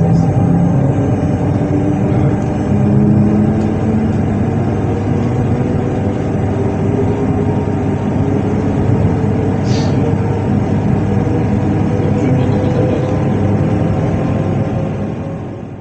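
Standing Z2N electric multiple unit Z 20788's on-board equipment running: a steady, loud hum with several tones, one of them slowly rising. A brief high sound comes in about ten seconds in.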